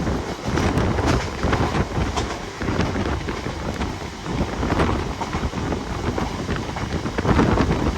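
Mumbai suburban electric local train running in heavy rain: a steady rumble with many short rattles and clicks, mixed with rain and wind buffeting the microphone.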